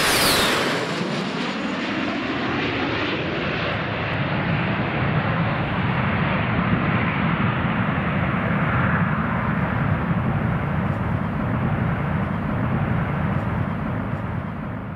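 Jet airliner passing close by at speed: its engine whine drops sharply in pitch as it goes past, followed by a steady jet roar that eases off near the end.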